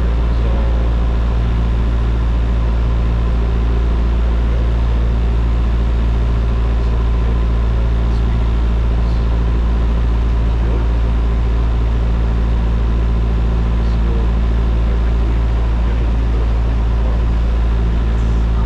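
Single-engine light aircraft's piston engine and propeller running steadily, a constant drone heard inside the cabin.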